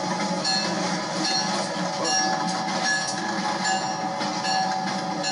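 Two EMD diesel road-switcher locomotives, an NPBL GP15-1 and an ex-Southern GP38-2, passing close by running light, with a steady engine drone and wheel noise on the rails. Brief high tones recur about once a second through it.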